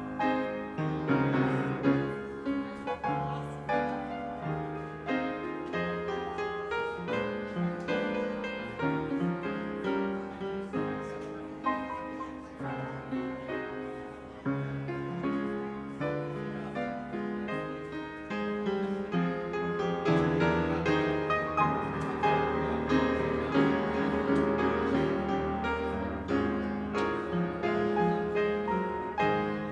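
Piano playing a steady flowing piece of many chords and notes, the postlude that closes a church service.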